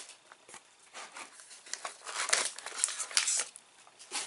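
Plastic snack bag crinkling and rustling in irregular bursts as it is handled, busiest in the middle.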